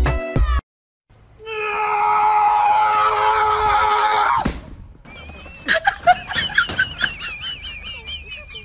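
A loud, drawn-out scream lasting about three seconds, cut off sharply. It is followed by a quieter run of high, wavering squeaky cries.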